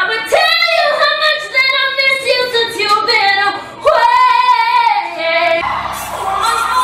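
A woman's solo singing voice belting long, wavering high notes around E5, almost unaccompanied. Near the end it switches to live singing over a keyboard and low band accompaniment.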